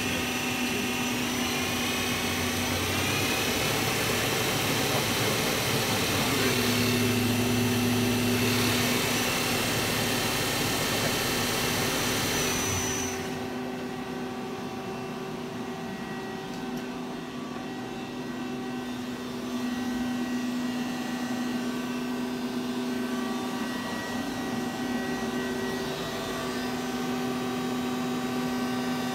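CNC lathe spindle and 8-inch chuck spinning under power, the spindle drive whine rising in pitch during the first few seconds as the speed is turned up, then holding steady. About halfway through the high whine and hiss drop away suddenly, leaving a quieter steady hum made of several tones.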